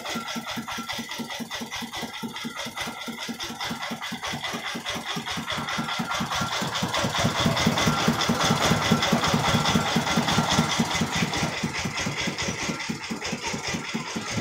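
Công nông's single-cylinder diesel engine chugging with an even, rapid beat, getting louder for a few seconds midway as the vehicle drives out.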